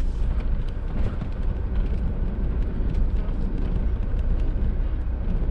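Car engine running, heard from inside the cabin as a steady low rumble.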